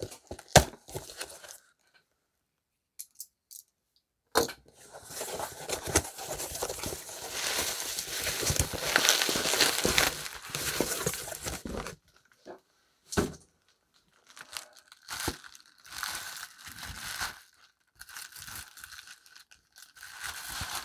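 Packaging being torn open and handled. A sharp click and a short quiet give way to a long stretch of tearing, then shorter bursts of bubble wrap crinkling.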